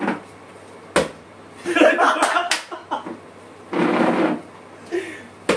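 A plastic water bottle is flipped and lands upright on a table with one sharp knock about a second in, followed by more short knocks and bursts of men's voices and laughter.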